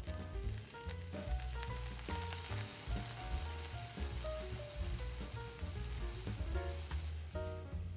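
Water sizzling and spitting in a hot nonstick frying pan around soufflé pancakes, a little water added to make steam; the sizzle swells about a second and a half in and dies away near the end. Background music with a bass line plays throughout.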